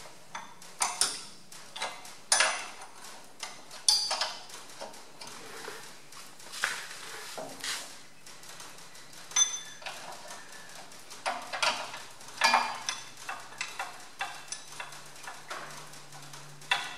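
Irregular metallic clicks and clinks of a spanner working on a radiator mounting bolt and nut at the bottom of a Massey Ferguson 135 tractor's radiator, with a few louder knocks among them.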